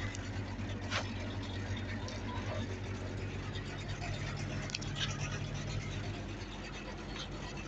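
Mertz 3250 floater's engine idling with a steady low hum, heard inside the cab, with scratches and clicks from handling close to the microphone, the sharpest about a second in. The hum weakens a little about six seconds in.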